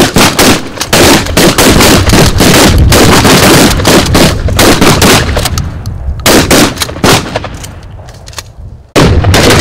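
Rapid, overlapping gunfire from a line of shooters at a firing range, among them a pump-action shotgun firing close by. The shots come thick and near-continuous, thin out about six seconds in and die away, then a fresh loud volley starts near the end.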